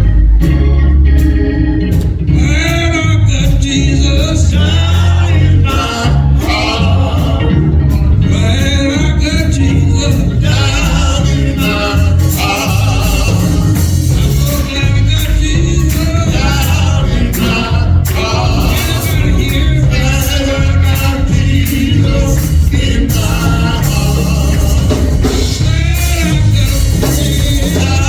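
Gospel music: singing with organ, bass and drums.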